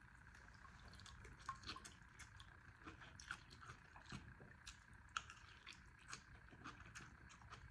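Faint, wet eating sounds of someone eating chicken noodle soup: soft squishy chewing with small mouth clicks, a few a second.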